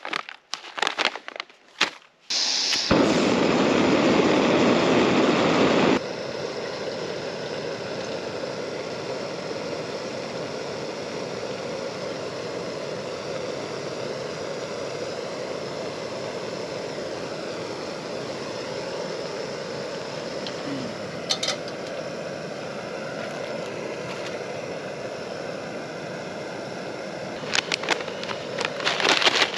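Backpacking canister stove, a Jetboil Stash, being lit to boil water: a few clicks of handling, then the gas burner catches with a loud rush about three seconds in. After a few seconds it settles into a steady, quieter burning hiss under the pot, with a few more clicks near the end.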